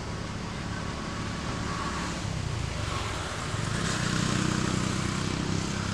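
A motor vehicle engine running steadily with a low hum, growing louder from about three and a half seconds in.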